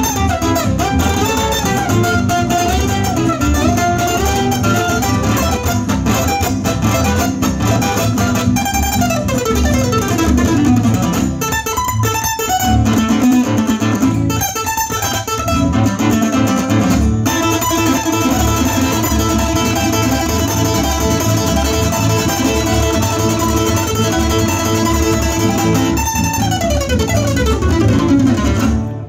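Live instrumental music from two nylon-string acoustic guitars, one playing a fast plucked lead, backed by an electronic keyboard. Falling pitch glides come twice, about a third of the way in and near the end, and the music stops at the very end.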